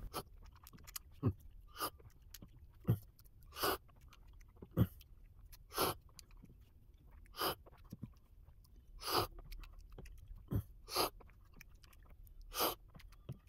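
Quiet sips and slurps of filter coffee from a small cup while tasting it, with swallowing and other mouth sounds: a dozen or so short sounds, spaced irregularly about a second apart.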